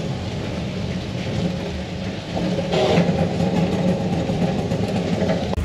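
A motor vehicle's engine running steadily, with a brief louder noise about three seconds in.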